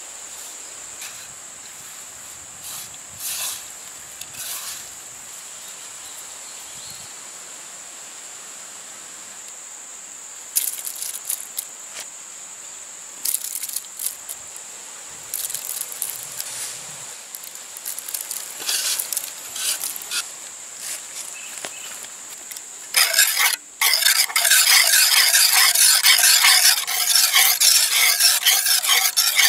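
Wire whisk beating beaten egg with chopped onion and chilli in a clay pot, in rapid, loud, rhythmic strokes that start about three-quarters of the way in. Before that, scattered light taps and rustles as the chopped mix is sprinkled in by hand.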